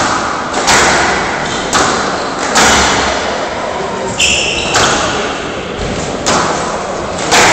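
Squash rally: sharp cracks of the ball off the rackets and court walls about once a second, each ringing on in the large hall.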